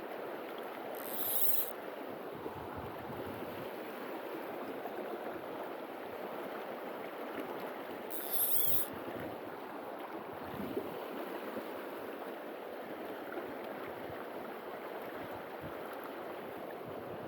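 River water rushing steadily, with two brief high-pitched sounds, one about a second in and one about eight seconds in.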